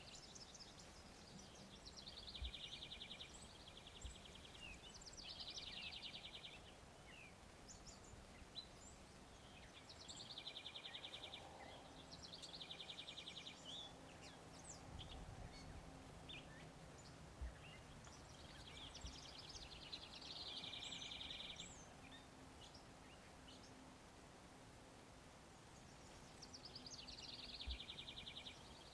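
A small bird singing a short phrase several times, each one starting with a quick falling note and running into a rapid trill. The song is faint over a low, steady background hum.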